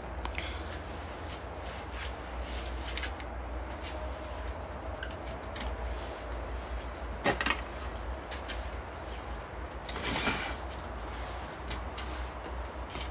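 Scattered light knocks and rustles of things being handled, over a steady low hum. The clearest knock comes about seven seconds in, and a short scuffle about ten seconds in.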